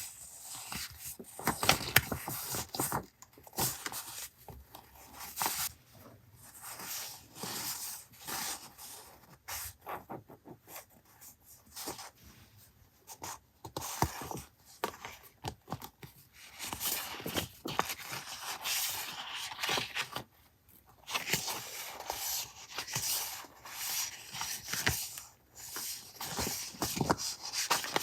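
Paper being worked on a journal page: irregular rubbing and scraping of paper against paper, mixed with many short clicks and taps.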